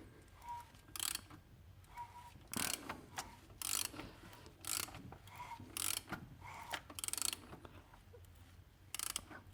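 BMW 320d (136 hp) diesel engine running with an irregular metallic rattle from the timing-chain case, in short bursts about once a second over a steady low hum. This is the sign, the owner thinks, of a timing-chain tensioner that no longer holds oil pressure.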